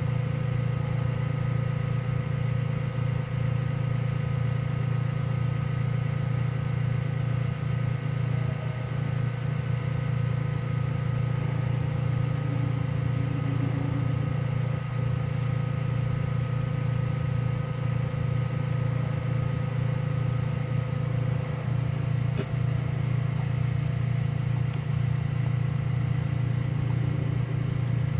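Diode laser cutter running: a steady drone from its fans and motors, with thin steady whines above it, as the laser head makes its passes through ABS plastic. One of the higher whines stops about three quarters of the way through, and a single sharp click follows soon after.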